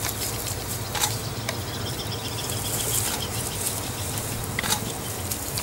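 Outdoor field-recording ambience: a steady hiss with a low hum, a faint high trill in the first half, and a few sharp isolated clicks.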